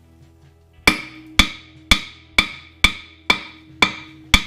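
Background music with a steady percussive beat: sharp, ringing wood-block-like hits about two a second, starting about a second in.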